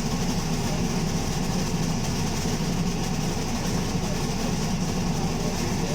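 Alexander Dennis Enviro200 MMC single-deck bus's engine running with a steady, loud low rumble.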